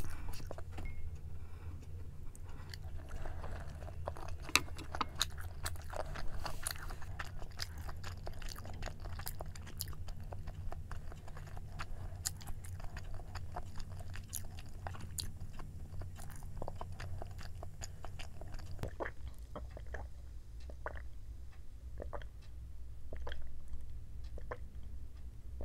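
Close-miked chewing of a mouthful of Korean braised chicken (jjimdak), full of small wet clicks and crunches over a steady low hum. The chewing thins out over the last few seconds, and near the end comes a sip of soda through a straw.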